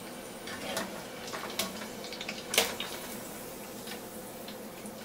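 Potato wedges frying in hot canola oil with a smooth, steady hiss rather than bubbling, the sign that the first fry is done. A wire spider skimmer scoops them out with a few light clicks and one sharp metal clatter against the pot about two and a half seconds in.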